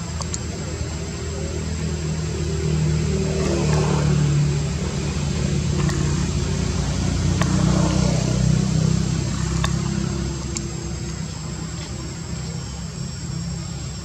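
A motor engine running steadily, swelling louder twice, about four and eight seconds in.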